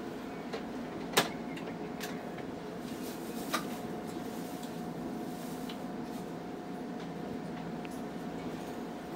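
Steady equipment hum inside a Hankai Tramway streetcar, with the tram standing still. A few sharp clicks break it, the loudest about a second in and another a couple of seconds later.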